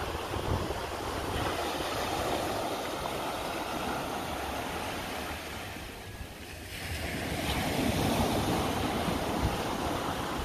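Waves washing along a bay shore, swelling louder about seven seconds in, with wind rumbling on the microphone.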